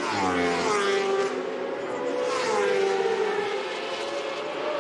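Racing motorcycle engines at high revs, one dropping sharply in pitch at the start and another doing the same around two and a half seconds in, over a steady engine note.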